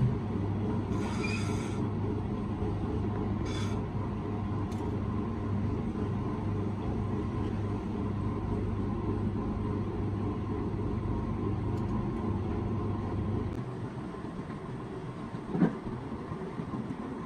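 Steady low mechanical hum, like a motor running, that cuts out about thirteen and a half seconds in. Two short scratchy noises come about a second in and again near four seconds, and a single knock comes near the end.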